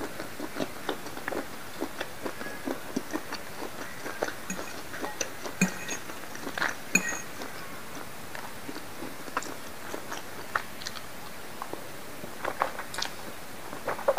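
Close-miked chewing of soft, saucy squid ink noodles: a run of short, wet mouth clicks and smacks. They thin out in the middle and pick up again near the end.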